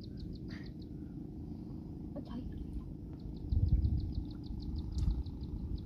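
A rapid, even run of high chirps from a small animal, about eight a second, heard at the start and again for about two seconds midway, over a low rumble that grows louder about three and a half seconds in.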